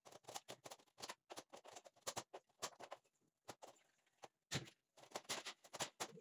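A window panel being handled and fitted into its frame: an irregular run of small knocks, clicks and scraping rattles, with the loudest knocks a little past halfway.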